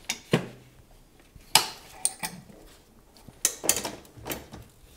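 Sharp metallic clicks and clinks, about seven spread over a few seconds, as a cable is unhooked from the pulley and bracket on the engine.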